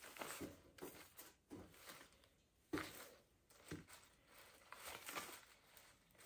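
Faint rustling and scattered light clicks from greenery branches being handled and turned.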